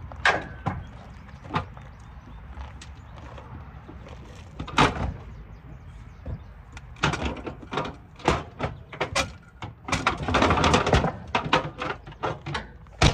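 Irregular metal knocks, clanks and rattles of parts being handled while metal parking-lot light housings are taken apart, with a quick run of rattling about ten seconds in, over a low steady rumble.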